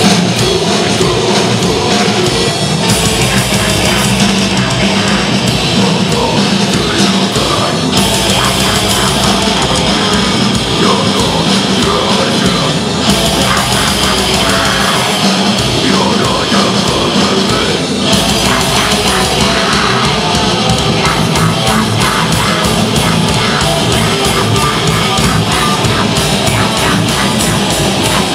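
Heavy metal band playing live at full volume: distorted electric guitars, electric bass and a drum kit, with a vocalist singing into a microphone. The drum pattern shifts between sections every few seconds.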